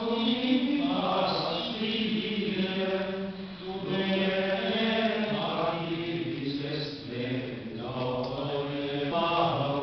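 A group of Franciscan friars chanting a slow sacred melody as they walk in procession, men's voices holding long notes that step from pitch to pitch, with brief breaths between phrases.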